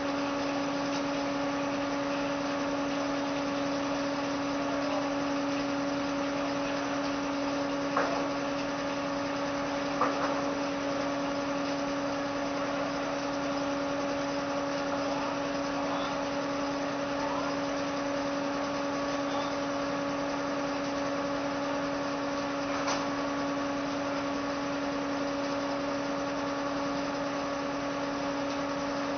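Tractor engine running at a steady speed to drive a belt-powered sawmill, a constant even hum with no change in load. A few sharp knocks sound about 8, 10 and 23 seconds in.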